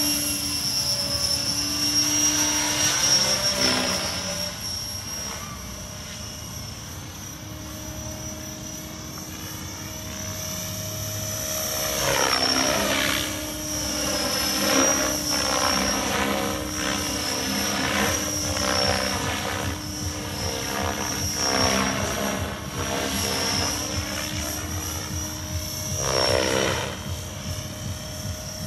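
Radio-controlled model helicopter in flight: a steady high-pitched whine over the rotor sound, swelling and fading as it swoops past, loudest about twelve seconds in and again near the end.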